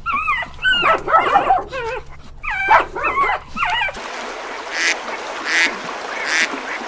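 Several overlapping high animal cries that bend up and down in pitch, then after an abrupt change, ducks quacking in a steady series of short calls a little under a second apart.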